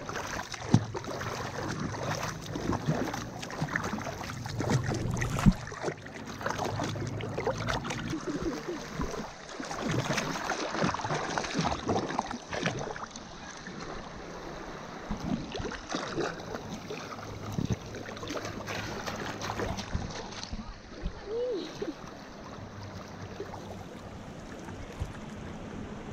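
River water rippling, lapping and splashing close against the microphone at the waterline, with many irregular small splashes. It turns softer and duller for the last few seconds.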